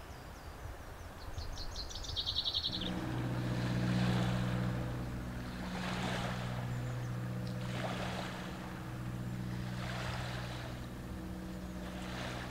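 A motorboat's engine drones steadily across the water from about three seconds in, with small waves washing in about every two seconds. Just before the drone starts, a bird gives a short, rapid high trill.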